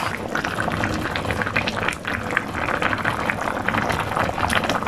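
Miso-based salmon sinigang broth boiling in a pan on the stove, a steady dense patter of many small bubbles popping.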